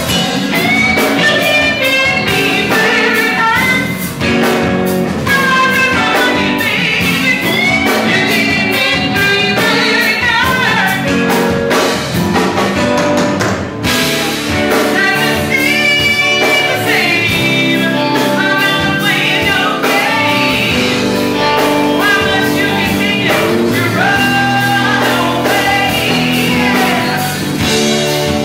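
Live funk band playing, with drums, bass and electric guitar under a lead singer's voice.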